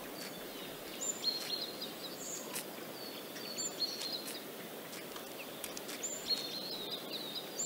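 Outdoor ambience of small birds chirping: short high calls that drop in pitch, recurring every second or so over a steady background hiss, with a few light clicks.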